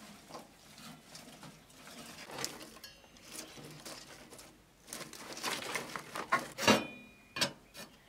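Dry kindling twigs and stalks rustling and crackling as they are pushed by hand into a wood-burning stove's firebox. Near the end, two sharp metal clanks with a brief ring as the stove's metal lid rings are dropped back into place.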